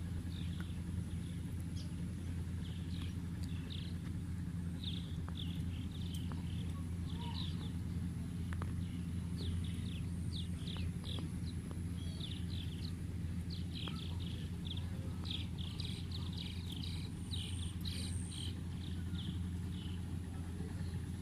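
A vehicle engine runs with a steady low drone. Over it, birds chirp in short, rapid clusters of high notes through most of the stretch.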